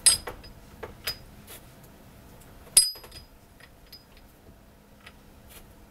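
Outboard gearcase internals (clutch dog, forward and reverse gears and prop shaft) clicking and clinking metal on metal as they are shifted into reverse and turned by hand. There is a sharp clink at the start, another about a second in and the loudest about three seconds in, with lighter ticks between.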